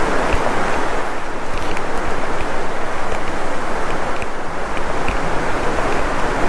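Steady rushing of fast river water running through rapids, a loud even noise without breaks.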